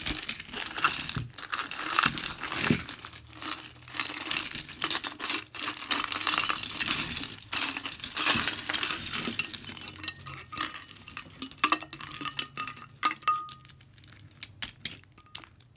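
A jar of mixed costume jewelry being tipped out: a dense run of metal pieces clinking and rattling as they spill out, thinning after about ten seconds to scattered clinks.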